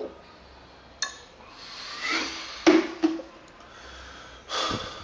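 A man drinking from a plastic water bottle, then catching his breath with short loud gasps and a heavy breathy exhale near the end.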